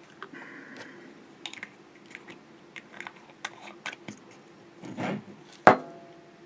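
Small objects being handled on a tabletop: a scatter of light clicks and taps, a brief rub about five seconds in, then a sharp knock with a short ring just after, over a faint steady hum.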